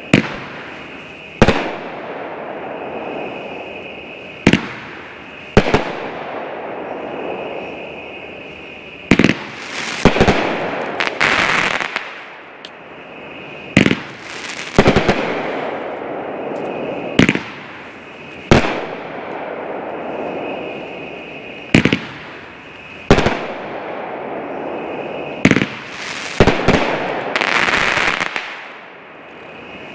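A 28-shot, 500-gram angled aerial cake firing one shot every four to five seconds. Each shot is a launch thump followed about a second later by the shell's break, with a crackling sizzle trailing after.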